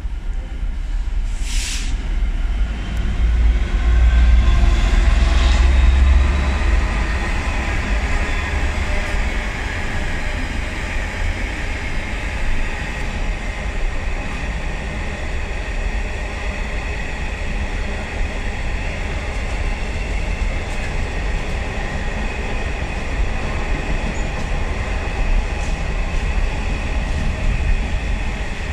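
A Class 66 diesel locomotive hauling an intermodal container freight train passes close by. The locomotive's engine is loudest about four to six seconds in, with a sharp bang just before. After that comes the long, steady rumble and clatter of the container wagons rolling through.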